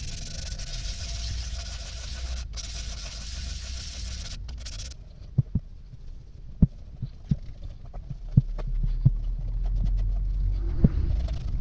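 Steady hissing scrape of abrasive paper rubbed by hand over a plated metal piece, broken by two short gaps. After a cut, softer rag-rubbing with car polish, with about eight dull low thumps as the metal is handled and set against the cloth-covered work surface.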